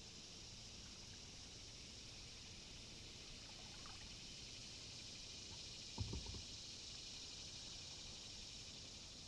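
Faint steady hiss of flowing water, with a single dull knock about six seconds in.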